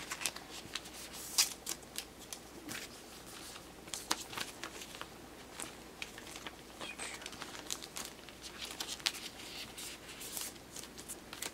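Thin clear plastic card sleeves crinkling and rustling as a photocard is slid into one and handled, with many small, sharp crackles and clicks throughout.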